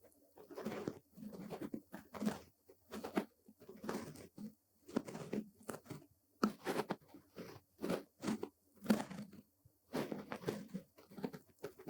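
Bristle brush strokes sweeping across a surface close to the microphone: a steady run of short, scratchy swishes, about two a second.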